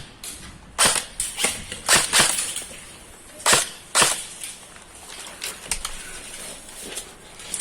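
Airsoft guns firing scattered single shots: about a dozen sharp cracks at irregular intervals, loudest in the first four seconds and fainter after.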